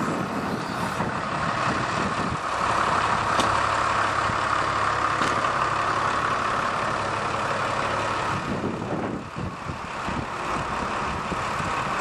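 Diesel engine of a scrap baler/logger running steadily, the 5.9-litre six-cylinder Cummins turbo diesel power unit. It gets a little louder about two and a half seconds in and dips briefly near nine seconds.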